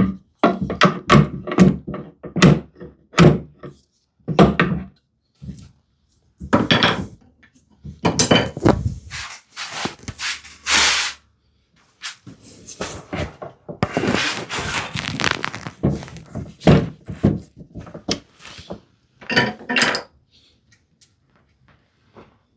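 Repeated irregular wooden knocks and thunks, with stretches of scraping and rubbing, as a cherry lid and its brass hinge are worked by hand to seat the hinge, which has not yet seated properly in its recess.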